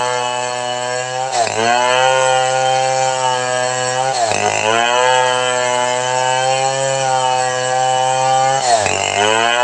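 Chainsaw running at high revs while cutting along a log. Its pitch dips sharply and recovers three times, about a second and a half in, just past four seconds and near the end, as the engine bogs under load in the cut.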